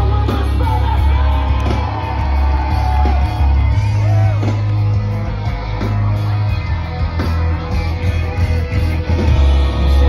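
A live post-hardcore rock band playing loud through a large outdoor PA, with a singer's voice over a very heavy bass and drum low end.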